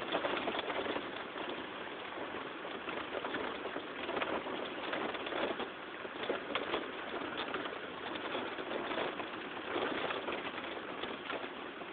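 Heavy rain striking a car's roof and windows, heard from inside the car: a steady hiss full of small, sharp drop hits.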